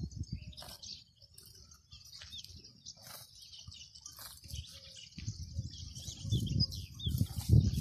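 Small birds chirping and twittering, with a low rough rumble underneath that grows louder in the second half.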